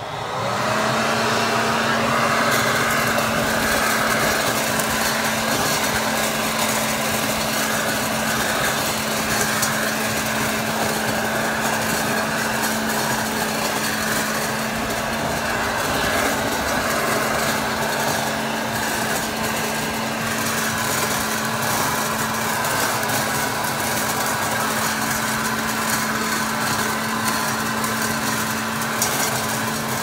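Toro Ultra corded electric blower vac running in vacuum mode, sucking up dry fallen leaves: its motor comes up to speed at the start, then holds a steady whine over a rush of air, with scattered light ticks.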